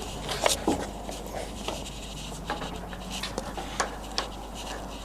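Scattered metal clicks and clunks from hand-working the tailstock and its locking levers on a Wroclaw TUR-50 lathe, with the loudest knocks about half a second in and near four seconds.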